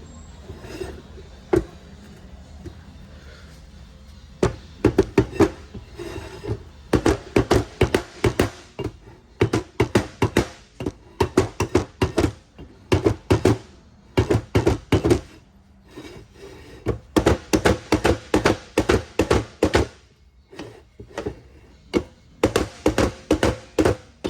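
Quick runs of sharp knocks and taps on a Ford 10R140 transmission's CDF clutch drum, several a second with short pauses, as a tight-fitting part is worked loose.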